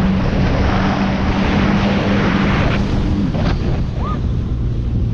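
Jet ski engine running at speed under heavy wind buffeting on the microphone and rushing spray. About three and a half seconds in, the engine note eases and drops lower.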